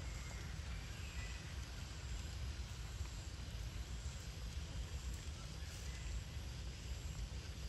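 Outdoor background noise: a constant low, fluctuating rumble under a faint even hiss, with a couple of faint short high chirps in the first second or so.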